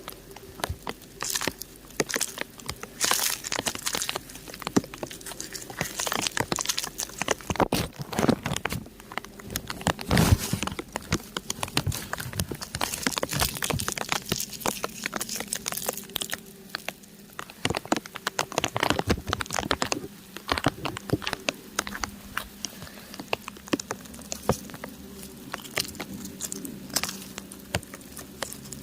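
Rain pattering on crumbling rock up close: a dense, irregular run of sharp little taps and cracks.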